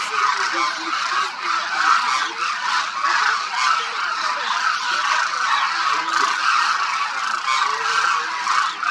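A huge flock of demoiselle cranes calling constantly, thousands of overlapping calls merging into one dense, unbroken chorus.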